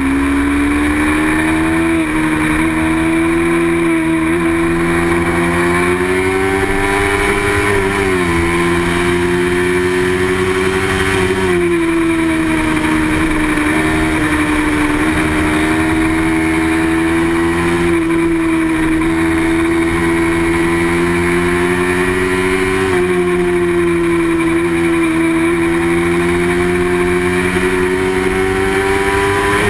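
Racing motorcycle engine running hard at high revs, continuously. Its pitch drops sharply and then climbs back about five times, as the rider changes gear or eases off and gets back on the throttle.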